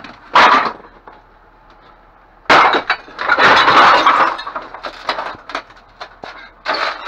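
Lamp glass clattering and crunching among discarded lamp parts. There is a short clatter just after the start, then a louder, longer rattling crash of glass about two and a half seconds in, followed by scattered clinks.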